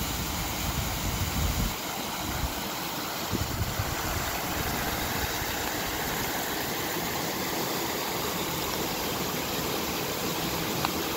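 Floodwater gushing out of an overflowing stormwater manhole and rushing across a flooded yard: a steady rushing hiss, with low rumbles in the first two seconds and again around three and a half seconds in.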